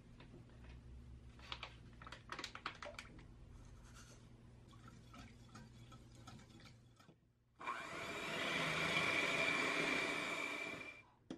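A wire whisk ticks and clicks against a glass bowl as cream is stirred. Past the halfway mark an electric hand mixer starts and runs steadily with a high whine for about three seconds, whipping the cream, then stops.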